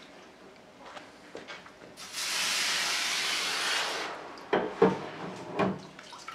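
Running water hissing into a stainless steel kitchen sink for about two seconds, starting and stopping sharply, then a few sharp knocks of the steel crosses against the sink as they are wiped with a cloth.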